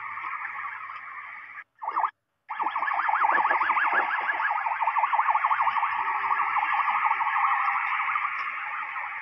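Emergency-vehicle sirens wailing. After a brief dropout about two seconds in, the sound comes back as a fast yelp, then settles into a slower wail.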